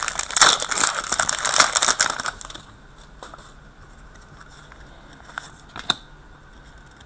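Wrapper of an Upper Deck Champs hockey card pack crinkling and tearing as it is opened by hand, for about two and a half seconds. Then a couple of light clicks as the cards are handled.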